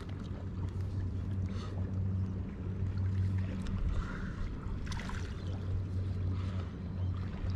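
A steady low motor hum, with a few faint clicks and rustles as a small metal lure is tied onto fishing line.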